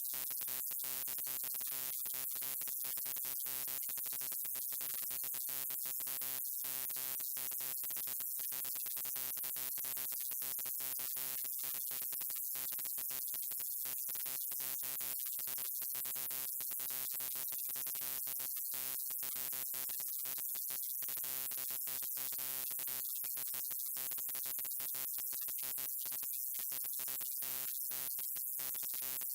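Neon sign buzzing: a steady electrical hum with overtones under a high hiss, broken by many brief, irregular cut-outs like flickering.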